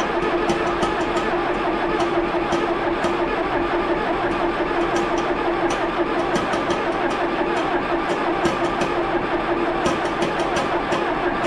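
A John Deere backhoe's diesel engine being cranked over on its starter, a steady whine with an even beat, without firing. It is being turned over with an injector line cracked loose to check for fuel delivery: the injection pump is not getting fuel to the injectors, which the owner suspects is a failed high-pressure pump.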